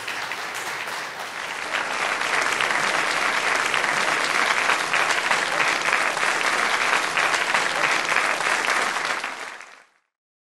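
Audience applauding, swelling louder about two seconds in and fading out near the end.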